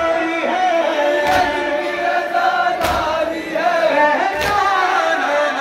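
A male reciter sings an Urdu noha (mourning lament) into a microphone, with a crowd of men chanting along. Loud unison strikes land about every second and a half, the mourners beating their chests (matam) in time.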